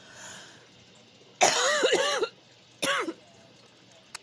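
A person coughing and clearing their throat close to the microphone in two bouts: a longer harsh one about a second and a half in and a short one about a second later, amid overpowering smoke and fumes in the room.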